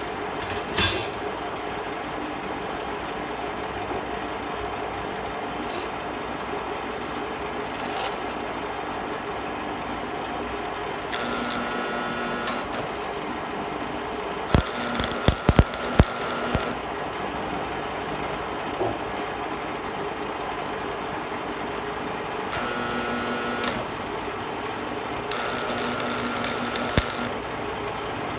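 Miller Thunderbolt AC stick welder (buzz box) humming steadily, with about five short bursts of arc crackle, each a second or two long, as the electrode is struck and run on thin steel plate; the last burst starts at the very end. A sharp knock comes just after the start.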